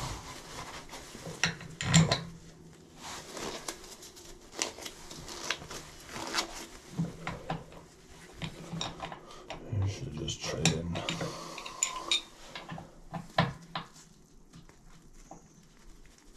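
Irregular metal clinks, knocks and scraping of hand tools against bathtub drain fittings.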